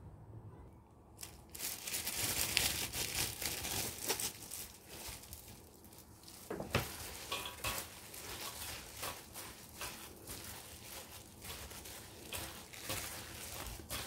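Hand in a thin plastic glove tossing chopped garlic chives and green onions with chili powder and rice paste in a stainless steel bowl: a steady crinkling, rustling noise with small clicks, starting about a second and a half in.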